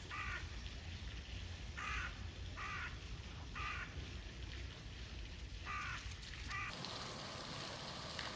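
Six short, harsh, caw-like animal calls at uneven intervals over a low steady rumble, with the background changing abruptly near the end.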